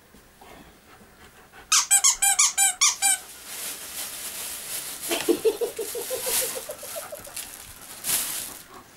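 A dog's broken squeaky toy squeaking about six times in quick succession, followed by a lower, rapidly pulsing squeak a few seconds later. A plastic carrier bag rustles, loudest near the end.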